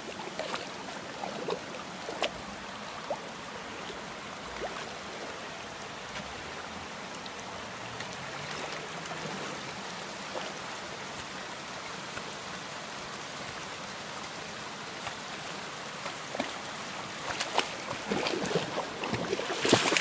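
Shallow river water running steadily, with scattered splashes, then louder and more frequent splashing near the end as dogs wade through the water.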